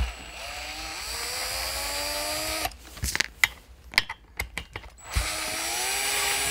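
Cordless drill-driver running in two spells, a motor whine that climbs steadily in pitch, as it works the screws on a 26cc two-stroke RC engine. Clicks and knocks of handling fall between the two spells.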